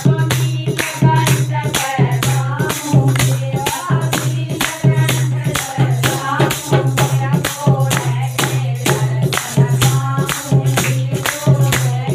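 Women singing a folk devotional song to a dholak drum and hand clapping, in an even, quick beat.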